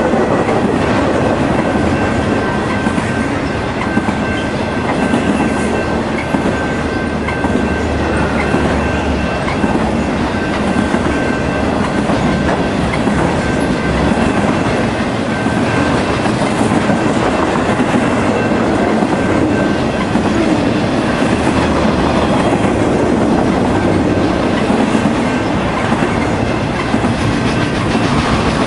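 Intermodal freight cars carrying highway trailers rolling steadily past at speed: a continuous rumble and clickety-clack of wheels over rail joints. A faint thin high-pitched ringing rides over it for about the first half.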